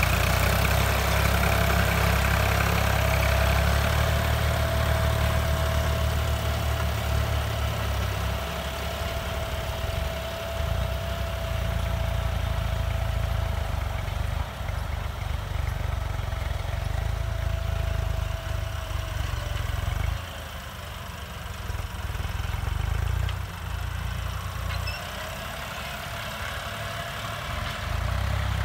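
John Deere 5310 CRDI tractor's diesel engine running steadily under load, pulling a disc harrow, with a thin steady whine over the low rumble for much of the time. It grows fainter about two-thirds of the way through as the tractor works farther off.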